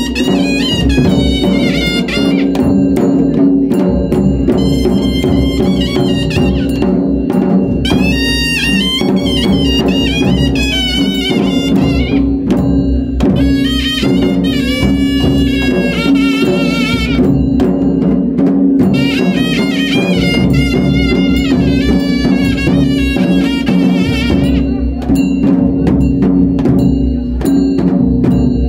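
Traditional Himachali temple music: drums beating steadily under a high, wavering wind melody, over a steady low drone.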